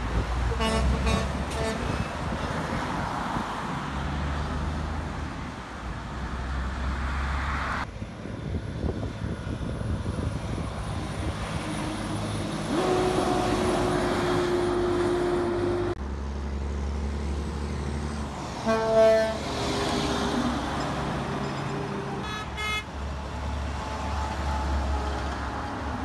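Heavy diesel dump trucks driving past with a low engine rumble, and horn blasts over it: a few short toots near the start, one held horn note of about three seconds in the middle, the loudest short blast about two-thirds of the way through, and a brief toot a few seconds later.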